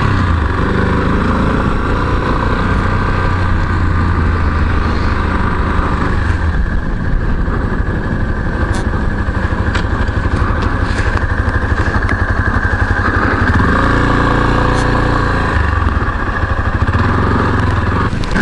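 Yamaha Serow's air-cooled single-cylinder four-stroke engine running as the bike is ridden slowly, its pitch rising and falling with throttle changes. Scattered clicks and rattles come near the end as the bike pulls off the road to park.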